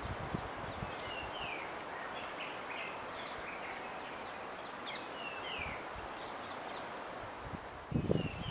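Outdoor ambience of a steady, high insect drone, like crickets or cicadas, with repeated short, falling bird chirps throughout. A brief low thump comes near the end.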